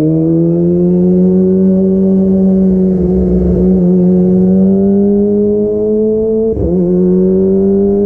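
Kawasaki ZX-25R's 250 cc inline-four, breathing through an aftermarket DX Generation Pro Race exhaust with the dB killer removed, pulling under load while riding, its high-pitched note climbing steadily. There is a brief break in the note about six and a half seconds in, after which it climbs on.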